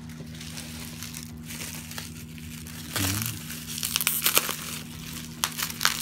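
Bubble wrap crinkling as it is handled and pulled open. It gets louder about halfway through, with sharp crackles near the end.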